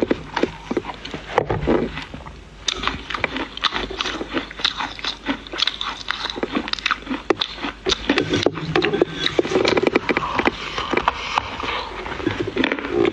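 Dry clay being bitten and chewed, a dense run of sharp crunches and crackles.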